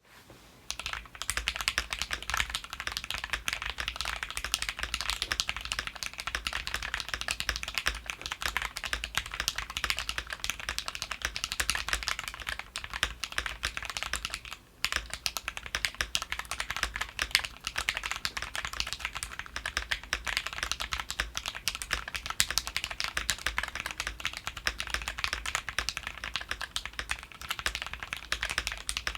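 Fast continuous typing on an OwLab Voice65 custom mechanical keyboard with lubed Gateron Ink linear switches, a dense run of keystroke clacks that starts just under a second in and breaks off briefly about halfway through.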